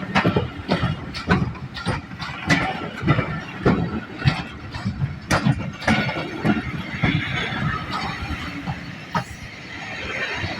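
LMS Jinty 0-6-0 steam tank engine 16440 and its train running past at low speed, wheels clicking and knocking over the rail joints at an uneven beat of about two or three a second, with a squeal from the running gear for a few seconds near the end.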